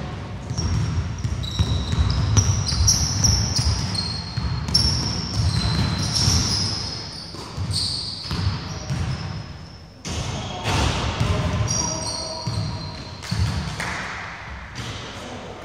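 Basketball game play on an indoor wooden court: the ball bouncing and players' footfalls as repeated knocks, with many short high squeaks of sneakers on the floor, in a large echoing hall.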